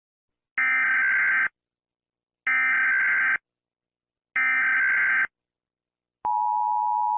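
Emergency Alert System SAME header: three buzzy digital data bursts, each just under a second long with about a second's pause between them, followed about six seconds in by a steady attention tone.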